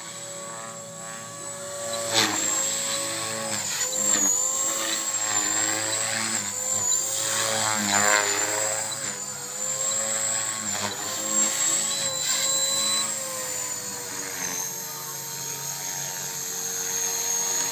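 Blade 450X electric RC helicopter in 3D flight: a steady high whine from its brushless motor and rotor blades, the pitch dipping and rising as the load changes. It gets louder about two seconds in and is loudest as it passes low about eight seconds in. Near the end the pitch starts to fall.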